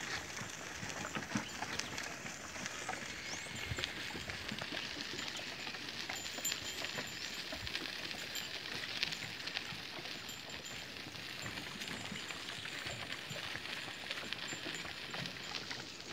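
A team of goats pulling a small wooden cart along a dirt road: many quick, light hoof clicks over the cart's steady rolling noise.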